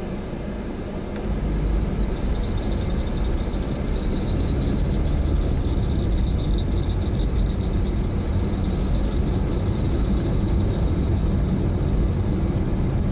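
Car driving: a steady low engine and road rumble, with a thin high-pitched tone joining about two seconds in.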